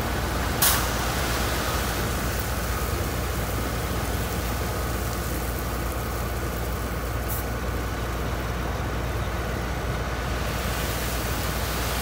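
Heavy construction machinery engine running steadily, with a sharp clank about half a second in and a fainter one later.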